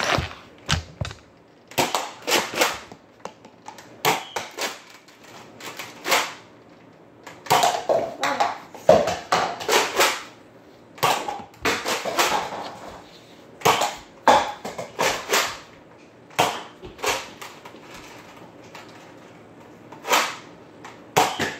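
A Nerf blaster being fired and worked indoors: repeated sharp clicks and knocks, singly and in quick clusters, scattered irregularly, busiest in the middle stretch.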